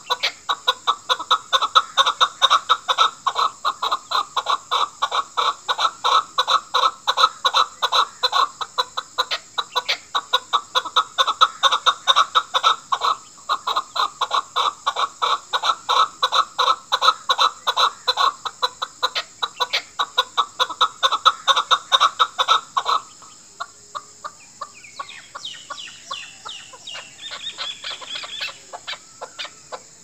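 Chukar partridge calling: a fast, even run of chuck notes, about four a second, that stops about three-quarters of the way through, after which fainter, higher calls follow.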